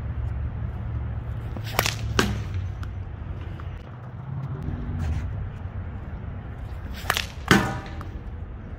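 Two sling shots. Each time the sling cracks as the ball is released, and about half a second later the ball strikes sharply at the target end; the second strike rings briefly. A low steady rumble runs beneath.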